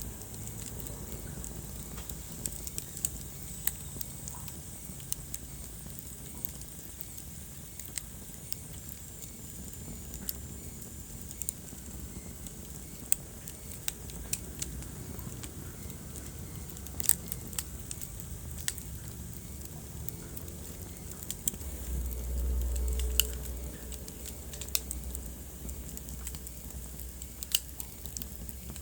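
Wood fire burning in a fireplace, crackling with sharp, irregular pops over a low, steady rumble of flames. The rumble swells briefly about three-quarters of the way through.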